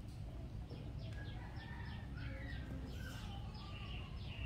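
A small bird chirping over and over, a quick run of short downward-sliding chirps about three a second that starts about a second in, over a steady low hum.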